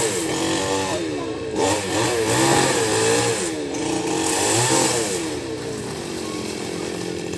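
New West 588 two-stroke chainsaw cutting a fallen coconut palm trunk. The engine's pitch repeatedly drops and rises as the chain bites into the wood, then runs steadier and a little quieter near the end.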